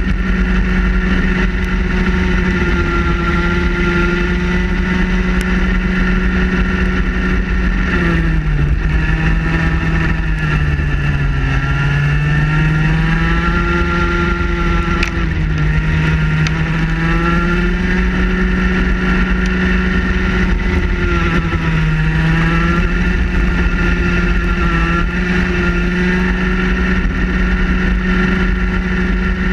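Vortex ROK two-stroke kart engine running at high revs, heard onboard the kart. The engine note sags as the kart slows for corners about eight, fifteen and twenty-one seconds in, and climbs back each time under acceleration; the deepest dip is the first.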